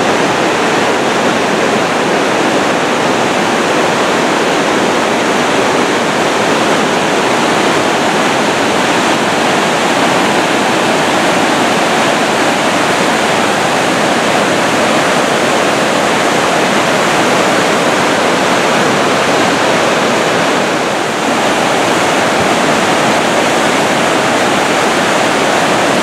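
Steady, loud rush of whitewater from fast-flowing river rapids tumbling over a small waterfall.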